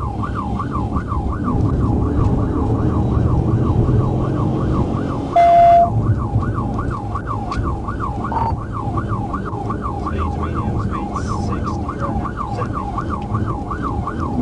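Police car siren on a fast yelp, wailing up and down about two and a half times a second over low engine and road rumble. About five seconds in, a loud steady tone cuts across it for half a second.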